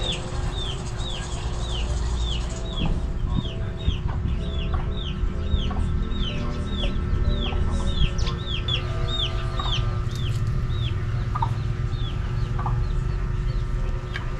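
Chickens calling: a rapid run of high, falling peeps at about two to three a second that thin out near the end, with occasional low clucks. Soft background music plays underneath.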